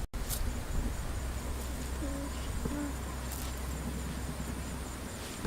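Insects chirping in a steady, fast, high-pitched pulsing drone, over a low steady rumble.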